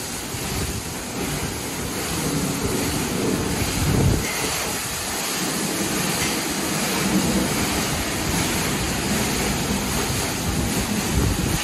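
Ryko Select-A-Wash in-bay car wash at work: its spinning cloth side brushes scrubbing a pickup truck amid spraying water, a steady rushing wash with a rumble that swells and fades, loudest about four seconds in.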